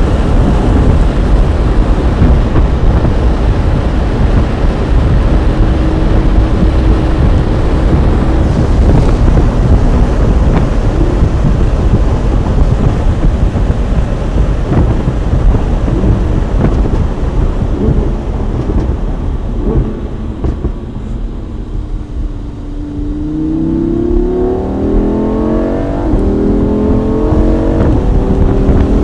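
Lamborghini Huracán Spyder's V10 engine driving with the roof down, mixed with heavy wind rush buffeting the microphone. The engine eases off about two-thirds of the way through, then climbs in pitch as the car accelerates near the end.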